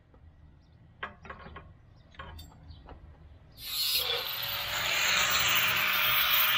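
Light knocks of a steel tube being handled and fitted to a metal frame, then about three and a half seconds in an angle grinder starts up with a rising whine and grinds into the end of the steel tube with a loud, steady hiss.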